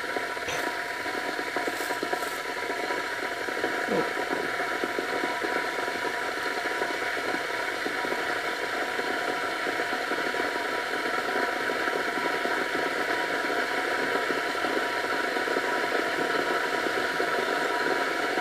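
A small motor or fan hums steadily, with a few fixed whining tones that do not change.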